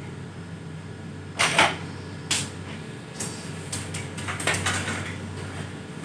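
Clicks and clattering knocks of hard objects being handled and set down, the loudest about one and a half seconds in and a quick run of smaller ones from about three to five seconds, over a steady low hum.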